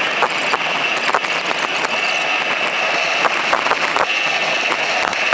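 Steady road and engine noise of a car driving along, heard from inside the cabin, with frequent small knocks and rattles.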